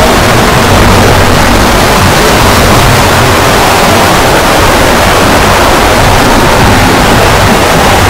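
Daewoo washing machine running: a loud, steady noise with a low hum underneath.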